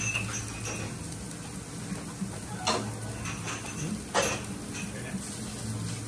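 Tableware clinking during a meal: a few sharp clicks of dishes and utensils, the loudest about two and a half and four seconds in, over a steady low hum.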